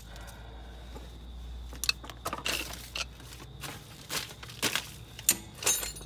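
Scattered metallic clinks and knocks of hand tools being handled and set down, a string of short, sharp sounds from about two seconds in, over a steady low hum.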